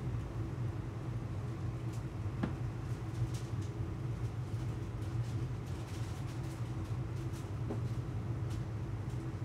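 Steady low mechanical hum of kitchen equipment running, with a few faint clicks.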